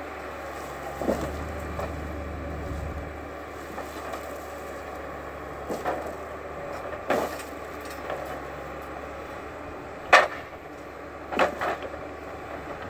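Timberpro 840B forwarder running with a steady low hum, over which logs knock and crack against each other and the machine as they are handled. The knocks come at irregular intervals, the loudest about ten seconds in.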